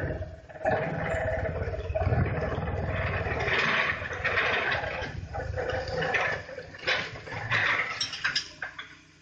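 Hydraulic vibro ripper on an excavator, its single shank vibrating into rock: a dense, rapid buzzing rattle over the excavator's engine, with gritty noise from the rock breaking up. It dies away near the end.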